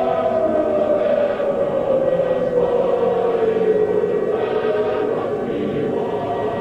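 Choral music, a choir singing sustained chords, with one strong note sliding slowly down in pitch over several seconds.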